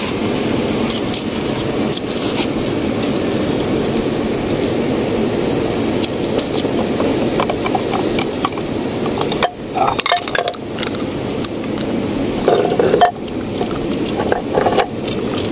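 Steel parts of an excavator travel motor's planetary gearbox clinking and scraping as they are pried and lifted out; the gearbox has run dry of gear oil and its gears are wrecked. A few sharp clinks come, most of them past the middle, over a steady noise.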